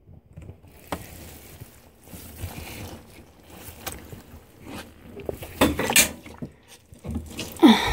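Wet, soapy towels being handled and squeezed by hand, with water splashing and dripping among scattered clicks and knocks. A louder brief sound comes near the end.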